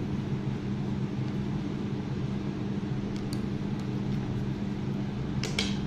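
Steady low mechanical hum, like a fan or air conditioner, with a few faint small clicks about halfway through and near the end.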